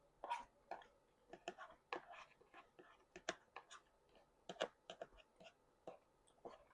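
Close-up chewing of food, with irregular smacks and clicks of the mouth a few times a second.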